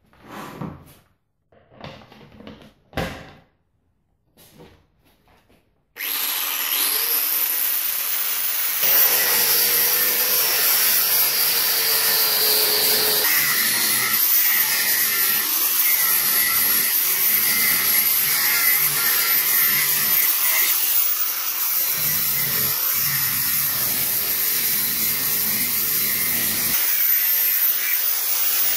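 A few handling knocks, then an angle grinder with a thin cutting disc starts suddenly about six seconds in and cuts steel with a steady high whine, louder from about nine seconds on. It is cutting off the mushroomed lips that hammer blows had raised on the top of a rusty axe head held in a vise.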